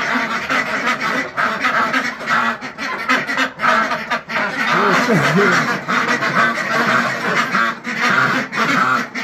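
A flock of penned domestic ducks quacking loudly and without a break, many calls overlapping.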